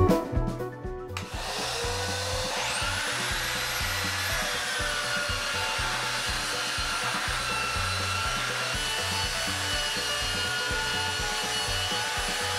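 An electric belt sander, its dust port hooked to a vacuum hose, starts up about a second in with a rising motor whine. It then runs steadily, sanding the end grain of a wooden cutting board with an 80-grit belt.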